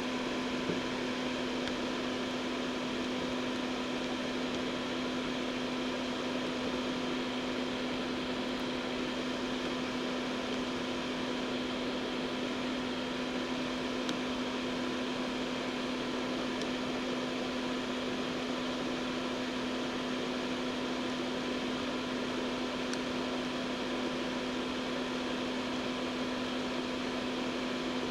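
An electric fan or motor running with a steady hum and a constant low tone.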